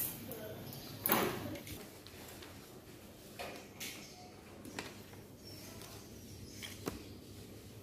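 Sheets of paper rustling and shuffling on a desk in a few short bursts, the loudest about a second in, with a faint scrape or knock now and then.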